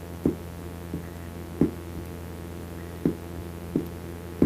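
Soft percussive beats keeping time, about one every two-thirds of a second, with a short gap in the middle, over a steady low electrical hum.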